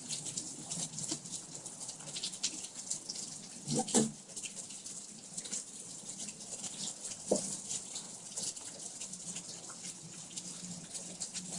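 Rain falling, heard as a steady hiss with many scattered small drips and patters. A brief louder sound comes about four seconds in and another a little after seven seconds.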